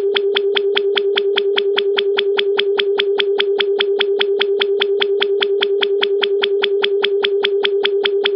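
Synthesized science-fiction electronic sound effect: a steady low tone overlaid with rapid, evenly spaced electronic pulses, about six a second, that cut off just at the end.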